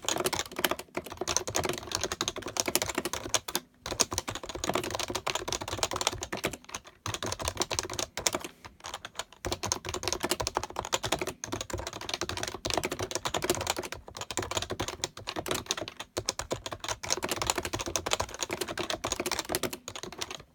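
Fast, continuous typing on an HHKB (Happy Hacking Keyboard) with its Topre electrostatic-capacitive switches, a dense run of soft key strokes broken by a few brief pauses.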